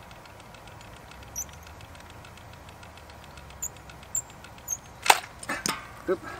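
Sharp clicks and knocks from an arrow being loaded onto a Wicked Ridge NXT 400 crossbow: one loud click a little after five seconds in, then two more close behind. The arrow is not seated properly, as the shooter himself thinks.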